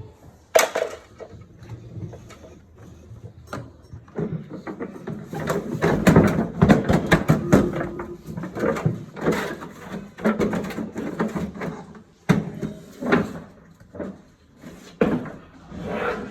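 Repeated knocks and clatter of hard parts and tools being handled as a front-load washing machine's tub is dismantled. There is one sharp knock about half a second in, and a busy stretch of knocking in the middle.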